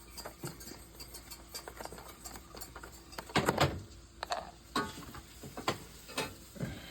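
Kitchen handling sounds while making gravy: scattered light clicks and knocks, with a louder clatter a little past three seconds in and a few more knocks after it.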